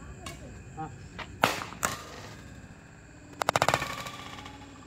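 Badminton rackets striking a shuttlecock during a rally: two sharp cracks about a second and a half in, then a quick rattling run of clicks a couple of seconds later.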